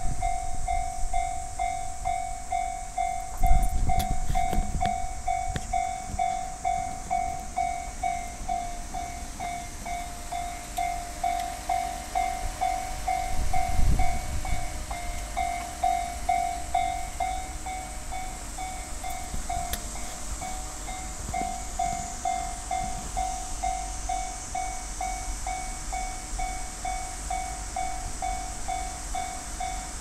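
Japanese railway level-crossing warning bell starting up and ringing: an electronic ding repeating evenly about twice a second, sounding as the crossing activates for an approaching train. Two low rumbles, about four and fourteen seconds in.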